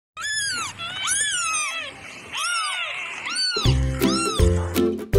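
Young kittens mewing: about five high-pitched meows that each rise and fall in pitch, two of them overlapping about a second in. About three and a half seconds in, music with a deep bass line and a beat comes in under the last meows.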